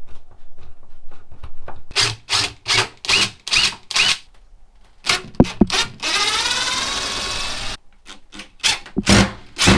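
Cordless drill-driver backing out the screws that hold a caravan shower vent's inside fascia: a series of short bursts of the motor, a steady run of about two seconds, then more short bursts near the end.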